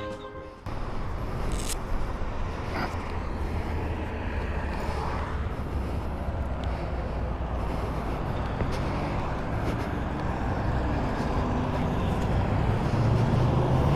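Motorcycle on the move: steady engine rumble under wind and road noise, starting suddenly a moment in and growing a little stronger in the low end near the end.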